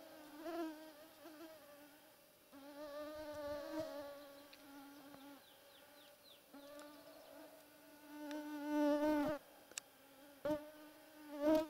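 A mosquito whining close to the microphone. The thin hum swells and fades as it passes several times, loudest about nine seconds in, then returns briefly twice near the end.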